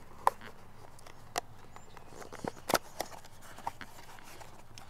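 A cardboard oil filter box being opened by hand: a handful of short sharp clicks and light crinkles as the flaps are pulled open, the loudest about three seconds in.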